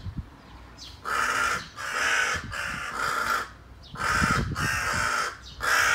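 A crow cawing: six loud caws of about half a second each, in two runs of three with a short pause between them, starting about a second in.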